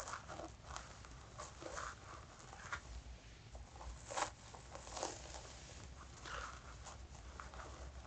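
Fingernails scratching through hair on a person's scalp, close to the microphone: irregular short scratchy strokes, one louder about four seconds in.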